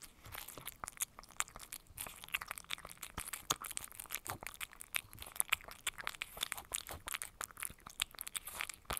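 Cat eating wet cat food: a run of small, irregular licking and chewing clicks, several a second.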